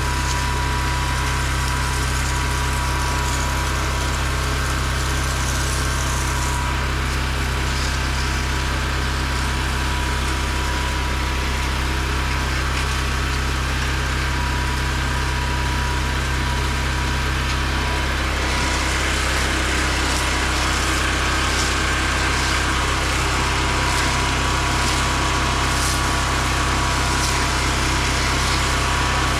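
Small engine of a pressure-washing rig running steadily, with a hiss of spraying water over it; the hiss grows a little past the middle.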